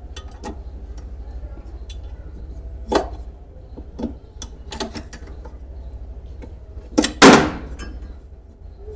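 Scattered clicks and knocks of hand tools and metal parts being handled while a washing machine's motor cover is screwed back on, with one louder clank and a brief ringing tail about seven seconds in, over a steady low hum.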